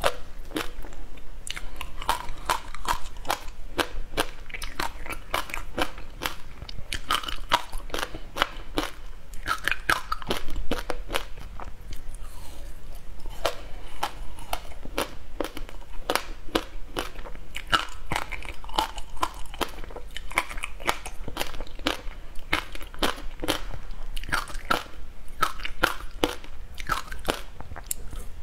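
Frozen passion-fruit ice being bitten and chewed close to the microphone: a continuous run of sharp, crisp crunches and cracks as the pieces break up between the teeth.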